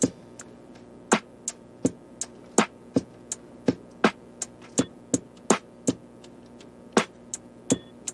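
Background music: a sparse beat of sharp percussive clicks, about three a second with a short break near the end, over faint held notes.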